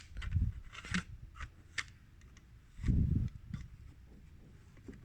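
Small plastic and metal parts of a CD player's disc mechanism being handled and fitted: light clicks and scrapes, with two dull low thuds, about half a second in and around three seconds in.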